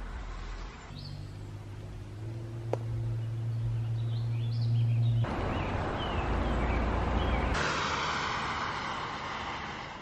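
A string of short outdoor ambience clips joined by abrupt cuts: a steady low hum with a few birds chirping, then a loud rushing noise that shifts higher about two and a half seconds later.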